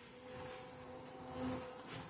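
Excavator running with a steady humming whine from its engine and hydraulics, swelling briefly about one and a half seconds in.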